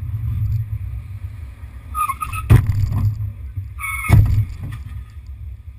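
Steady low rumble of a car on the move, with two short high tones about two seconds apart, each followed by a sharp knock.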